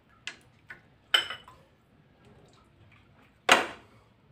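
Metal soup ladle clinking against the pan: a few sharp clinks, one ringing briefly, then a louder clatter about three and a half seconds in as the ladle is set down.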